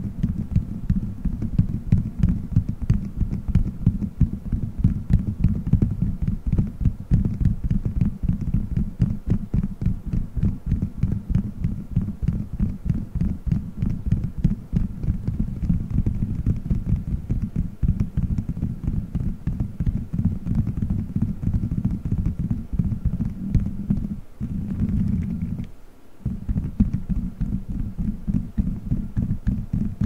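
Fingertips rapidly scratching and rubbing over a gummy-bear microphone cover, picked up right at the mic as a dense, muffled stream of low thumps and taps. The sound pauses briefly about four seconds before the end.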